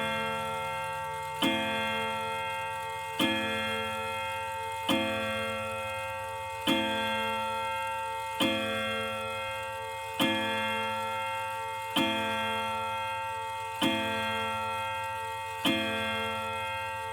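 1991 Ridgeway grandfather clock striking the hour of 12 on its chime rods: nine even strokes a little under two seconds apart, each a ringing chord that carries on into the next. One rod is slightly out of tune, which gives the strike a creepier tone.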